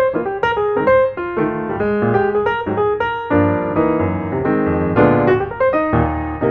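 Background piano music: a quick, flowing run of notes with chords underneath.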